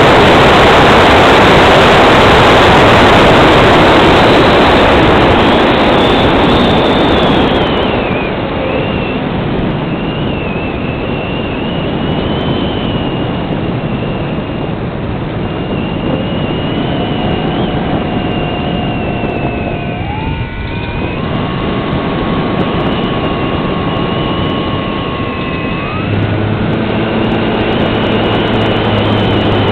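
Onboard sound of a Multiplex Cularis electric model glider in flight: a loud rush of airflow over the microphone that eases after about eight seconds. It leaves the thin whine of the electric motor, which steps up in pitch about twenty seconds in and again near the end.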